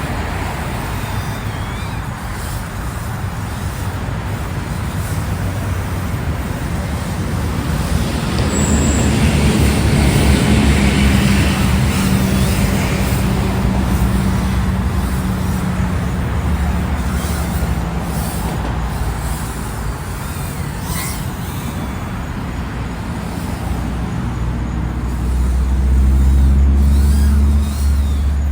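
Low, steady rumble of a motor vehicle running, with a few low tones that swell louder about a third of the way in and again near the end.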